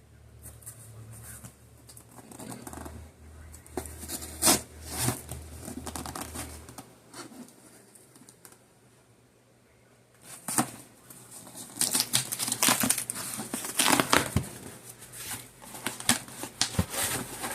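A package being opened by hand: tearing, crinkling of packing material and cardboard being handled, in a run of scrapes and sharp clicks, with a lull of a few seconds in the middle.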